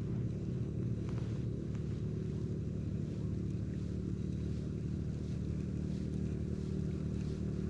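Steady low hum of an engine running at constant speed.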